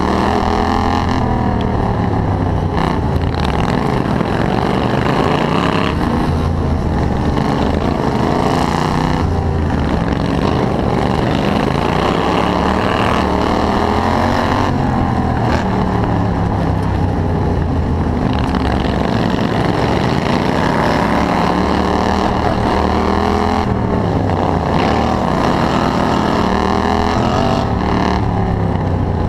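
Racing ride-on lawn mower's engine heard close up from on board, running hard, its pitch rising and falling several times as it speeds up and eases off.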